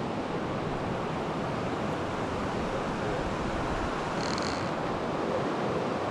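Steady rushing of a river's current over stones, with a brief high-pitched sound about four seconds in.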